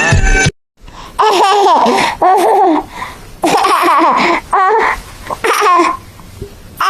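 High-pitched, warbling laughter in several separate bursts.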